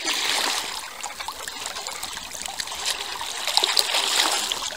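Sea water lapping and trickling in small splashes, a steady fizzing wash of water sounds.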